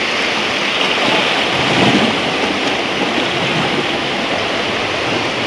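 Whitewater river rushing steadily, a continuous hiss of moving water that swells slightly a second or two in.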